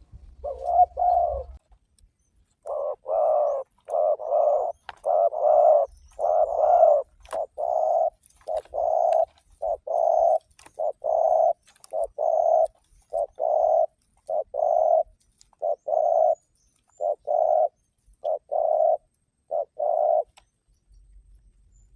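Spotted dove (tekukur) cooing: a long series of short, low coos repeated about once a second, some in close pairs, with a pause just before the end.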